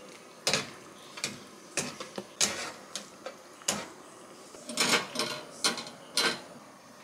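Pasta spoon stirring pasta in a cooking pot, knocking against the pot about a dozen times at uneven intervals.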